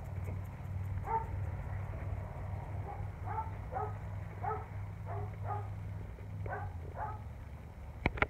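A dog barking repeatedly, about nine short barks, over a steady low hum. A sharp click near the end.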